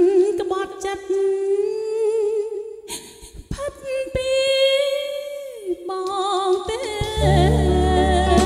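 A woman singing a Khmer song with strong vibrato on long held notes, almost unaccompanied. About seven seconds in, the band comes back in underneath with bass and keyboard chords.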